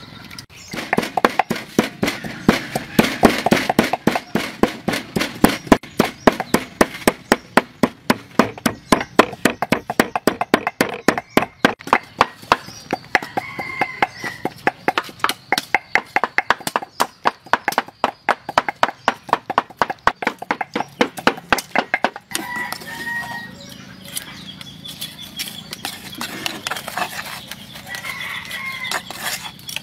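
Wooden pestle pounding in a large clay mortar: rapid, even, heavy strokes that stop about 22 seconds in. Chickens cluck and crow in the background, most clearly after the pounding stops.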